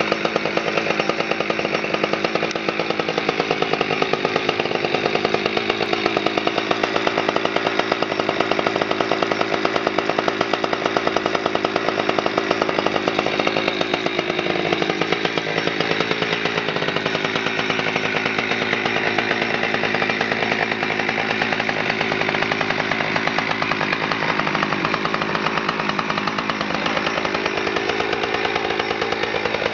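Husqvarna 359 chainsaw's two-stroke engine idling steadily with no hand on the throttle, its idle speed wandering slightly up and down in the second half.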